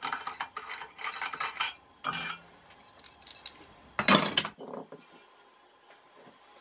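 Metallic clinks and rattles of a spanner, nut and threaded rod being taken off a bearing just pressed into a washing-machine motor's rotor hub, with two louder clanks about two and four seconds in, then quiet.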